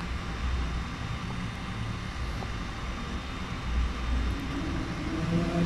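Low, uneven rumbling background noise with a faint hiss, like distant traffic.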